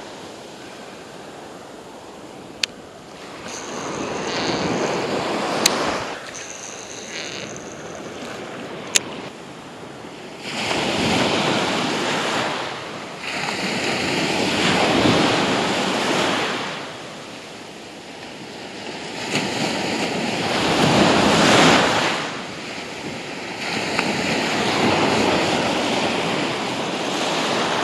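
Small surf breaking and washing up the beach in swells that build and fade every few seconds, with wind on the microphone. A few sharp clicks stand out in the first ten seconds.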